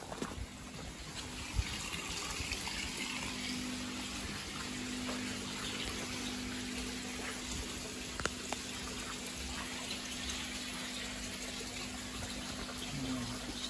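Water running steadily, building up over the first second or two, with a steady low hum underneath.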